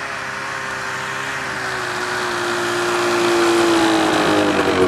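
Yamaha snowmobile engine running as the sled approaches, getting louder, its pitch easing down as it slows near the end.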